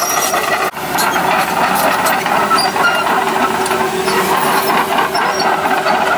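Komatsu PC160LC hydraulic excavator travelling on its steel crawler tracks, its diesel engine running under load with the clatter of the tracks. A steady whine rises out of the noise for a couple of seconds in the middle.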